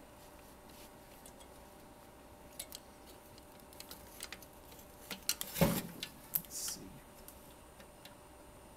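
Light clicks and taps of hands working at a stuck circuit board in an opened LCD monitor's metal chassis, with a louder cluster of knocks about five and a half seconds in.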